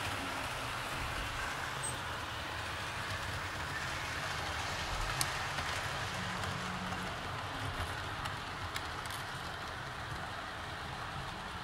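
HO scale model diesel passenger train running along the layout track: a steady rolling and whirring noise with a few faint clicks.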